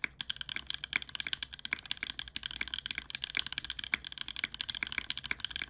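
Fast typing on a Keycult No.1/60 custom mechanical keyboard, with lubed NovelKeys Cream linear switches, GMK keycaps and an aluminium plate: a dense, unbroken run of keystrokes during a typing speed test.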